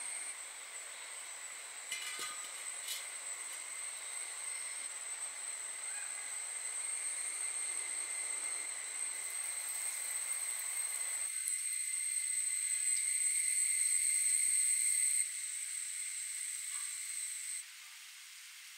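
Hot oil sizzling steadily in an iron kadai as breadcrumbed chicken cutlets deep-fry, with a few light clicks about two seconds in. The sizzle grows louder toward the middle and drops away in steps near the end.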